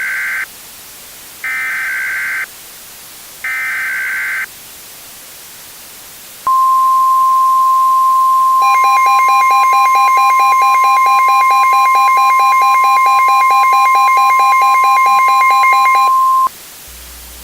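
Emergency Alert System broadcast tones: three one-second bursts of warbling SAME header data with short gaps between them, then a steady 1050 Hz NOAA Weather Radio warning alarm tone for about ten seconds. About two seconds after the steady tone starts, a rapid pulsing tone joins it and stops just before it.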